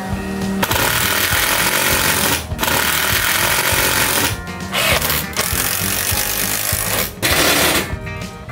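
Cordless drill boring into the plywood sofa top in several runs of one to two seconds each, with short pauses between them; background music plays underneath.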